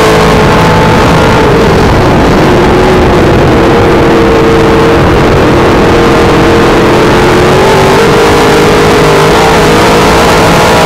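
Dirt modified race car's V8 engine running hard at racing speed, heard loud from inside the cockpit. Its note drops for a few seconds about two seconds in as the throttle eases, then climbs again near the end as it gets back on the power.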